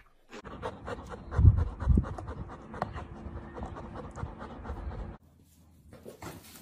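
Dog panting rapidly close to the microphone, with two heavy low thumps about a second and a half and two seconds in. The panting stops abruptly just past five seconds.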